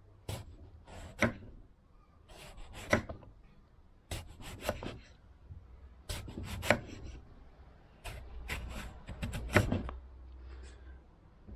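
Kitchen knife slicing an aubergine into thin rounds on a wooden chopping board: a series of sharp taps as the blade goes through and meets the board, about one a second, some in quick pairs.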